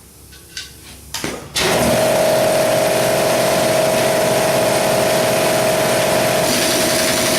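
A shop air compressor kicks on abruptly about a second and a half in and runs steadily, a loud even noise with a constant whine, after a few light tool clicks.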